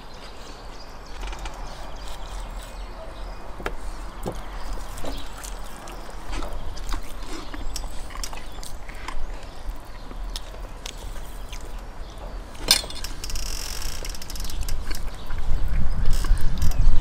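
Eating at a table: scattered small clicks and crackles of roast chicken and bread being torn and chewed, with one sharper click followed by a brief hiss about three-quarters of the way through. A low rumble grows loud near the end.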